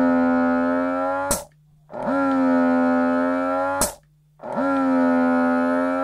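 Bellababy electric breast pump running at maximum suction, quite loud. It goes through repeated suction cycles about two and a half seconds apart: each is a steady motor hum that rises a little in pitch as it starts and ends in a sharp click, followed by a short pause.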